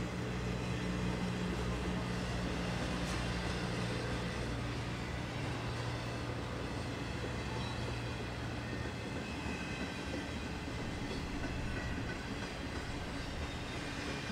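BNSF intermodal freight train's trailer-laden flatcars rolling past, a steady rumble of steel wheels on rail. A low hum underneath fades out in the first half.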